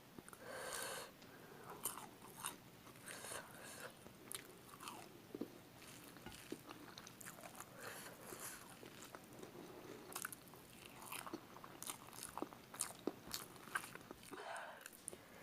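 Person eating spicy chicken feet: irregular chewing and biting with many short wet mouth smacks and crunches.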